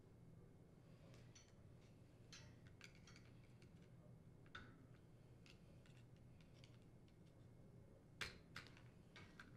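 Faint, scattered plastic clicks and ticks as a dishwasher rack adjuster assembly is worked loose from a wire upper dish rack, the sharpest click about eight seconds in.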